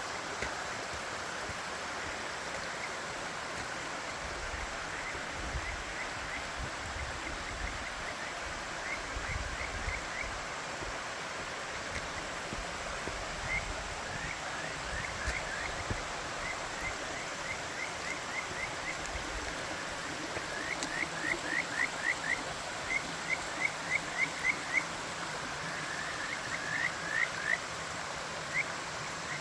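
Steady rush of a waterfall, with a frog calling over it in runs of short, quick rising notes that come more often and louder in the second half.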